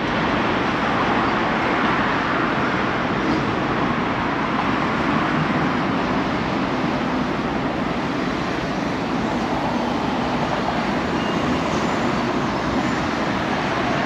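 Steady city traffic noise: a continuous, even hum of road vehicles passing.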